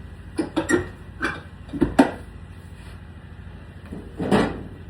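Electrical box cover being put back in place: a string of sharp knocks and clanks, the loudest about two seconds in, then a longer clattering scrape a little after four seconds.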